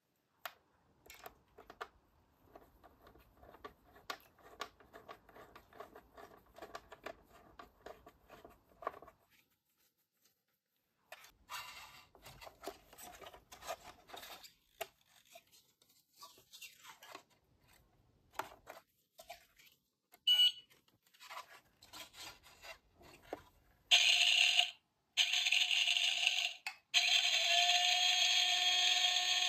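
Small plastic toy pieces clicking and rustling as they are handled, with one short electronic beep. Near the end a battery-operated mini kitchen toy gives off a loud, steady, alarm-like electronic sound, broken twice by short gaps.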